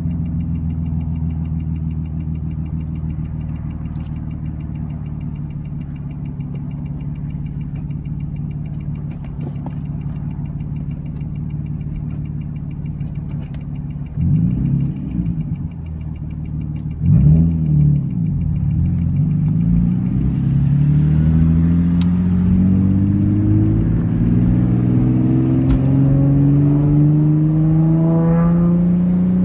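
Nissan 350Z's 3.5-litre V6 through a straight-piped, muffler-delete exhaust, holding steady revs, then blipped twice about halfway through. It then pulls in one long, steady climb in pitch, with a couple of sharp snaps during the pull.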